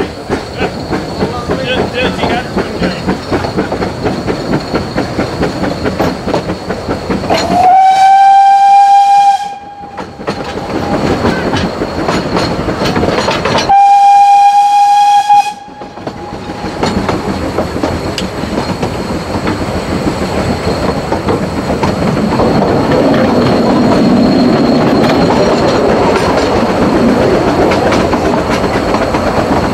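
Vale of Rheidol narrow-gauge steam locomotive getting under way with a quick rhythm of exhaust beats, then two long, steady blasts on its whistle a few seconds apart. After that comes the continuous running noise of the train and its carriages on the rails, heard from an open carriage behind the engine.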